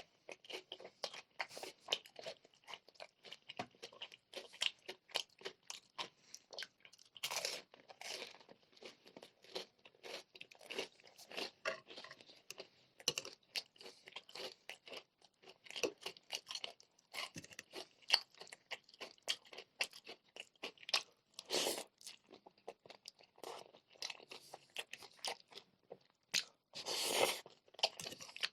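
A person chewing close to the microphone, with dense, rapid crunching of crispy fried chicken pieces. Three longer, louder noisy stretches stand out: about a quarter of the way in, about three quarters in, and near the end.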